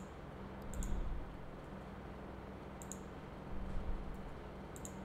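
Quiet clicking of computer controls while working in software: three small groups of two or three clicks, roughly two seconds apart, over a low steady hum.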